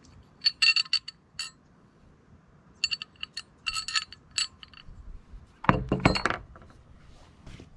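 Steel suspension clevis brackets clinking against each other in the hands, in two short runs of sharp, briefly ringing clinks. A louder clatter follows about six seconds in as the brackets are set down on a plastic workbench.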